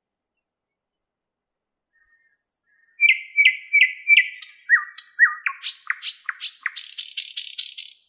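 Thrush nightingale singing one song phrase that starts about a second and a half in. It opens with a few high whistles, moves to repeated sharp notes and then lower slurred notes, and ends in a fast, dry rattle. Each element is repeated several times, as is typical of the species.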